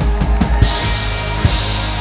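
Music with a drum kit: a quick run of drum hits in the first half second and one more hit about a second and a half in, over held notes.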